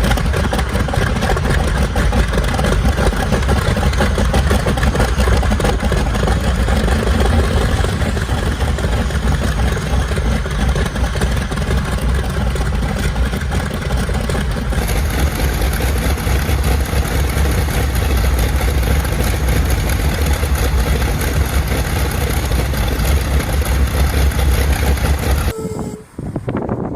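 Large piston aircraft engine turning a propeller, running loud and steady with a fast, even firing pulse. The sound changes abruptly about halfway through to a different engine run, and drops out briefly just before the end as another run begins.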